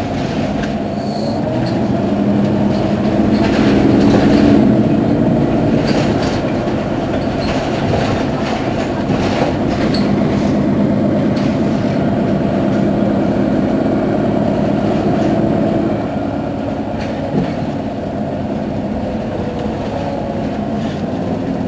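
Mercedes-Benz Citaro city bus engine running with a steady hum. It grows louder to a peak about four seconds in and eases back about sixteen seconds in.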